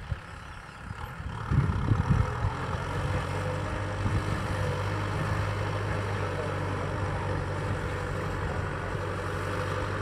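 Kubota M6040SU tractor's diesel engine running steadily under load while ploughing, heard from a distance as a low hum. A few low thumps come about one and a half to two and a half seconds in.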